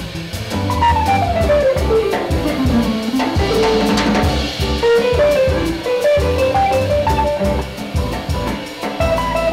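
A small jazz band plays live: hollow-body electric guitar, upright bass, keyboard and drum kit. A melodic line runs down over about two seconds and then climbs back up, over a steady bass and drum groove.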